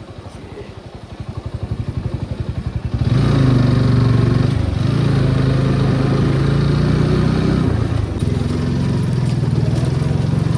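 Motorcycle engine running: pulsing at low revs at first, then louder and steady from about three seconds in, easing briefly near the end.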